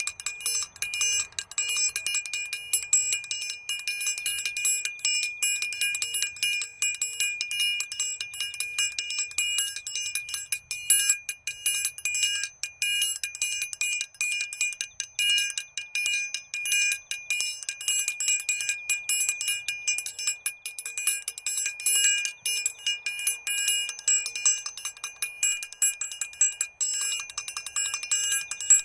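A small metal bell rung rapidly and without pause, its high ringing tone sustained by a dense run of strikes.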